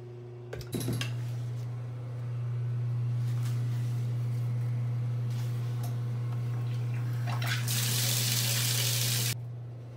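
Shower water running from a wall-mounted shower head onto tile, growing louder near the end, then cut off suddenly at the chrome lever valve. A few clicks come just under a second in. A steady low hum runs underneath.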